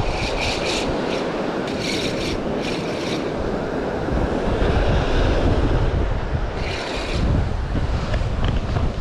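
Wind buffeting the microphone over the sound of surf, with a few short spells of a spinning reel being wound in against a hooked salmon.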